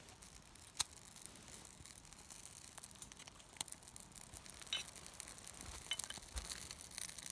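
Small wood fire in a folding metal stick stove, faintly crackling and popping at irregular intervals over a light hiss just after being lit.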